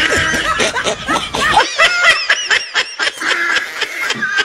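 Several people laughing and snickering in quick, high-pitched bursts.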